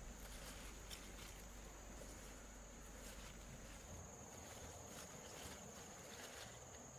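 Faint, steady high-pitched insect drone, like crickets, with a few soft scattered clicks.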